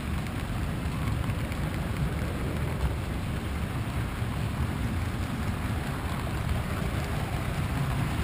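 Model freight train cars rolling past on the layout track: a steady, low rolling noise of wheels on the rails.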